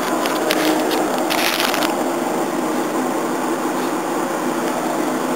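Handling noise from a hand-held camcorder as it is picked up and moved, crackling and rustling for about the first two seconds. Under it runs a steady machine hum.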